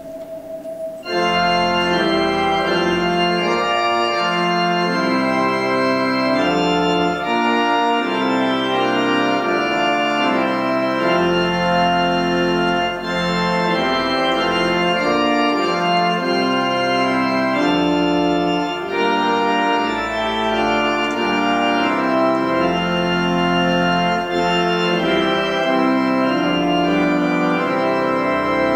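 Two-manual organ playing a 16th-century German hymn melody in full sustained chords, starting about a second in, with deep bass notes coming and going beneath them.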